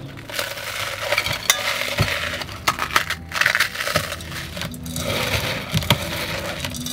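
Dry toasted bread crushed and crumbled by hand in a bowl: a steady crunchy crackling with many sharp little clicks.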